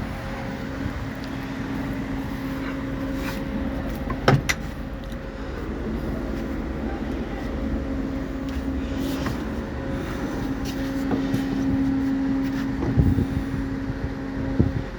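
Boat engine running steadily with a constant hum, with a sharp knock about four seconds in and another thump near the end.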